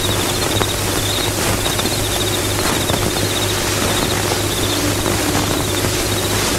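Steady hiss with a low hum, the background noise of a worn old film soundtrack, with no speech and no distinct event.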